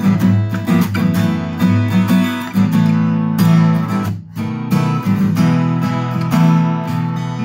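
Recording King RD-17 dreadnought acoustic guitar, with a solid spruce top and rosewood back and sides, strung with new 11-gauge strings, playing strummed chords that ring on. The playing breaks off briefly about four seconds in, then carries on.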